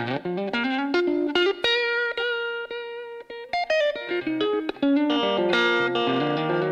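Solo electric guitar, a sunburst Stratocaster-style guitar played through an amplifier: picked notes with string bends and slides, a few notes left ringing about two to three and a half seconds in, then busier playing from about five seconds in.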